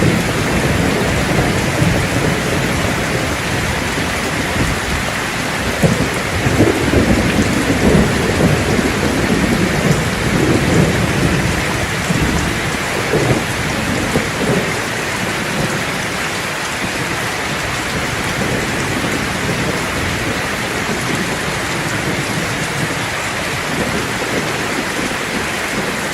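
Heavy rain pouring down steadily in a storm, with a dense hiss of rainfall on surfaces. Louder low rumbling surges come and go in the middle stretch.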